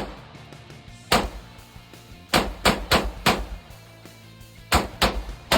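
Semi-automatic pistol firing eight shots: one single shot, then four in about a second, then three more near the end, over background music.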